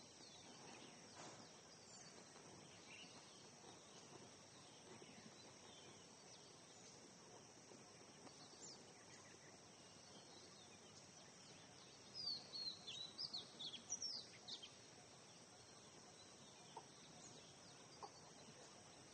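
Near silence with faint background noise, in which birds chirp faintly. A run of quick, short high chirps comes about twelve seconds in and lasts a few seconds, with a few more near the end.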